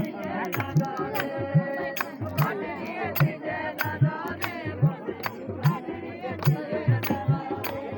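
Himachali Pahari folk music for a natti dance: drums keep a steady beat of about two to three strokes a second under a melody.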